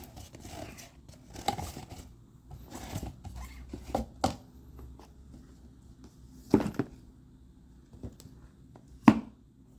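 Handling and opening of a watch's packaging: rustling and scraping, with several sharp knocks or clicks, the loudest near the end.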